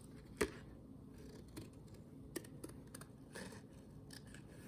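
Scissors faintly snipping through thick printed paper: a handful of separate short cuts along an outline.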